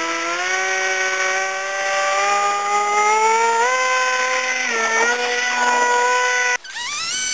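RC model plane's motor and propeller running, a whine whose pitch climbs in steps as the throttle is opened. It cuts off abruptly near the end, then spins up again with a rising whine.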